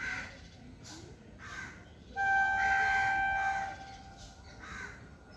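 Crows cawing a few times. About two seconds in, a distant train horn sounds one long steady note for about a second and a half, the loudest thing here.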